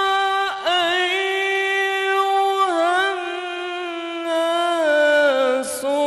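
A man chanting solo and unaccompanied into a microphone, a melismatic line of long held notes with wavering ornaments that steps down in pitch toward the end.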